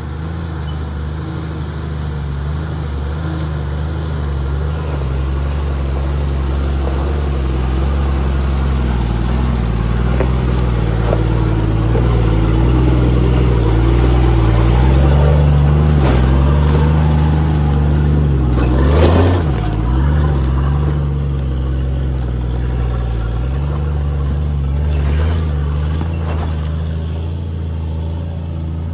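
Turbo-diesel 4WD engine working up a steep rocky climb, its pitch rising and falling with the throttle. A sharp knock stands out about two-thirds of the way through.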